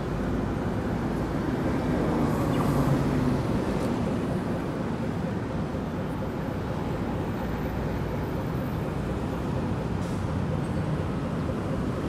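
Steady city road traffic, growing louder as a vehicle passes about two to three seconds in.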